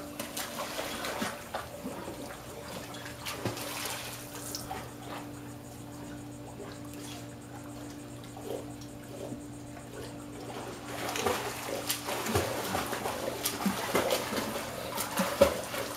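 Pool water sloshing and splashing as a dog paddles and a child swims freestyle. The splashing is sparse in the middle and gets busier over the last few seconds, with a faint steady hum underneath.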